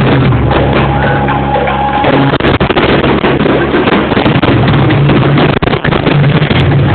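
Loud rock music with a drum kit.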